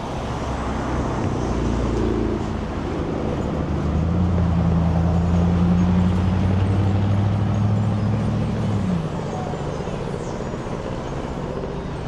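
Street traffic: a motor vehicle's engine running close by. It comes up to a steady, even tone about four seconds in and drops away around nine seconds, over a continuous hum of traffic.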